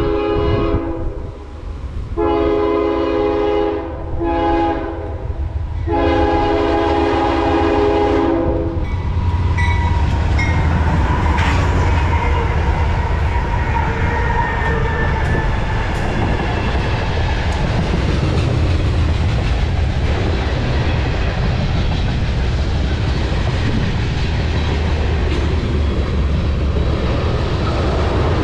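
Diesel locomotive's multi-chime air horn sounding the grade-crossing signal (long, long, short, long), then the train running past with a steady heavy rumble and wheel noise over the rails, with a few faint squeals.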